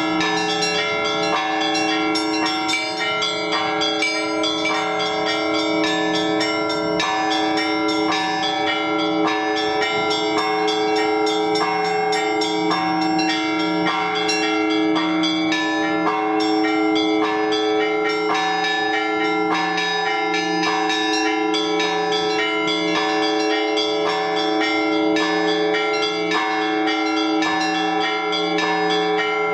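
Orthodox church bells rung together in a continuous peal: small bells struck in a rapid, steady rhythm over the sustained ringing of larger, deeper bells.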